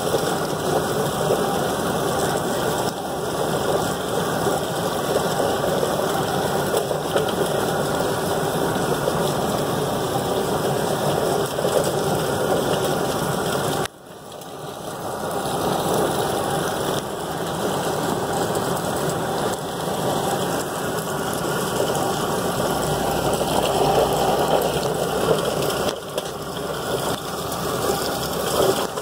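Drum-style poultry plucker running steadily with a duck tumbling inside, a continuous mechanical churning. About halfway through the sound drops out suddenly, then builds back up over a couple of seconds.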